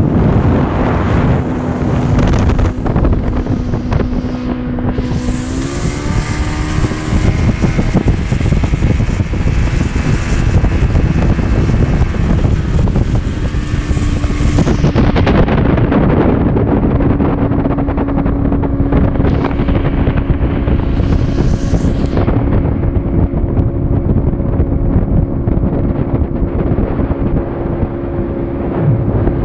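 Johnson 115 hp outboard motor running under way on a speedboat, its steady drone stepping up in pitch about six seconds in and then holding, with wind rushing over the microphone at times.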